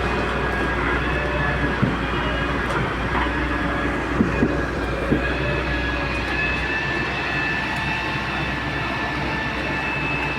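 Heavy excavator running steadily with a thin high whine over its engine, and a few short knocks in the first half.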